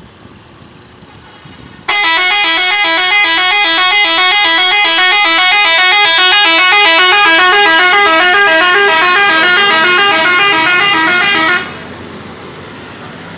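Telolet bus horn, a set of musical horns, playing a quick tune of short notes stepping up and down. It starts abruptly about two seconds in, runs loudly for about ten seconds and cuts off near the end.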